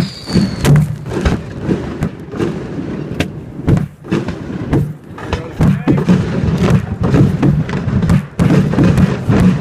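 Fireworks shells firing from mortar tubes at close range and bursting: an irregular run of many bangs and thumps over a low rumble.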